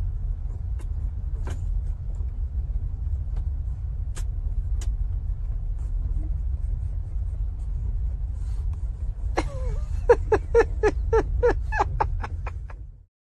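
A steady low rumble, with a few faint clicks, and from about two thirds of the way in a quick run of about ten short yaps from a small dog, some four a second. Everything cuts off shortly before the end.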